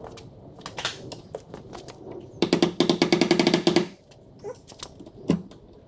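A fast run of ratcheting clicks lasting about a second and a half, with small handling clicks and knocks around it and one sharp knock near the end.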